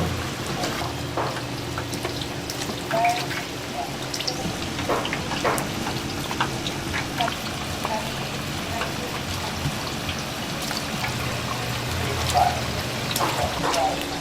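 A steady hiss with many small scattered crackles and clicks over a low steady hum, with a few brief voices.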